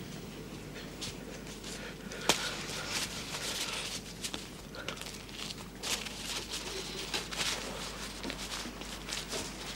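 Paper wrapping crackling and rustling as a bread roll is unwrapped and handled, after a single sharp knock about two seconds in.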